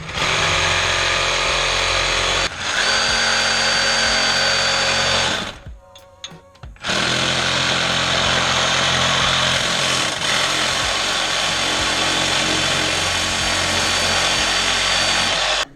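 A handheld power tool running steadily in two long runs, the first about five seconds and the second about nine, with a short stop between them.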